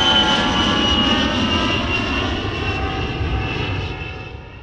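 Jet airliner passing in flight: engine noise with a high whine that slides slowly down in pitch, fading away near the end.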